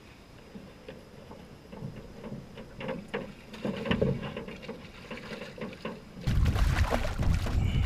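A white buzzbait churning across the water surface, a sputtering run of clicks and splashes that grows louder as it comes closer. About six seconds in, a sudden loud rush of noise takes over.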